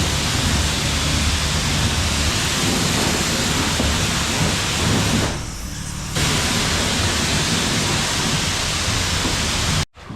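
Car-wash pressure wand spraying water onto the john boat's hull, a loud steady hiss of spray with a low rumble underneath. It thins out briefly about halfway through and stops abruptly near the end.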